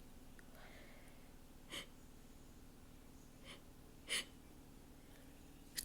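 A person's faint, short sniffs and catching breaths through the nose, three brief ones spaced a second or two apart, while working up to the next sneeze.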